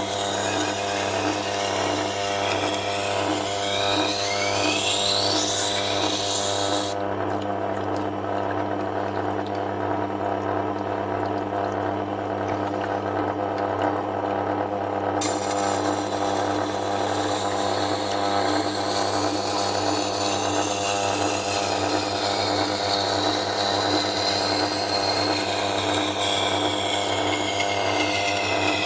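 Tormek T8 wet grinder running steadily with a low motor hum while a chef knife's edge is ground on its SG250 stone, higher tones sliding up and down in pitch over it. The grinding is light and takes off very little metal.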